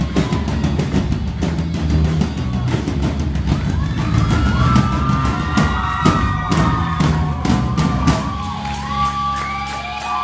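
A live rock band playing loud, with dense drum and cymbal hits. In the second half, high shouts and whoops rise over the music, and near the end the band holds a final chord while the drums keep crashing.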